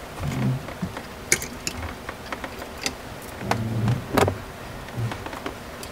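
Clothes hangers clicking and clacking against a closet rod as a dress is hung up: several sharp clicks, the loudest about four seconds in.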